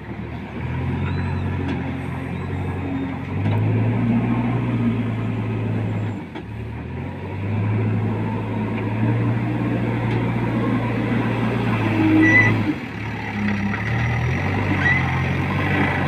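JCB backhoe loader's diesel engine running under load while it works its loader bucket, revving up and easing off several times.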